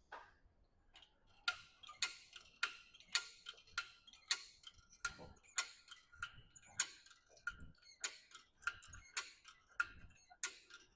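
Hoist ratchet clicking steadily, about two sharp clicks a second, as it lowers a heavy load a little at a time.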